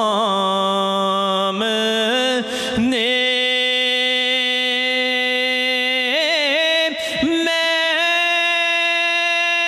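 A man's voice singing a naat unaccompanied through a microphone, drawing out long held notes that step upward, with quick ornamental turns between them. It ends on a long, high held note.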